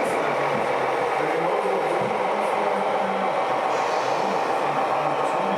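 Radio-controlled model trucks and construction machines running: a steady, unbroken whirring din with no break or sudden change.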